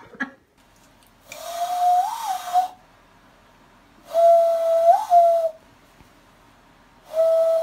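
Cupped-hand whistle: a man blows into his clasped hands three times, each a steady, breathy note lasting over a second that lifts briefly in pitch just before it stops.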